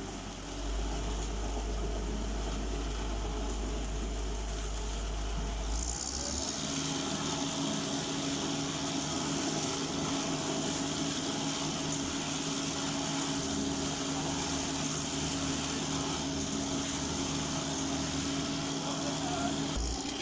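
The engine of a mini concrete mixer truck running steadily. About six seconds in the sound changes to a higher, steady hum with a hiss on top, which holds to near the end.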